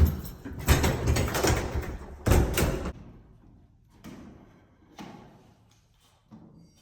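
A clatter of loud knocks and thuds for about three seconds, then a few faint clicks.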